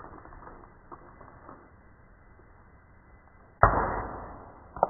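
Air gun firing: one sharp, loud report about three and a half seconds in that dies away over most of a second, followed about a second later by a short sharp click.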